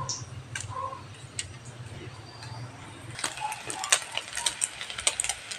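Hot cooking oil crackling and popping around a fried noodle patty in a pan, with dense, irregular spatters starting about three seconds in over a low steady hum.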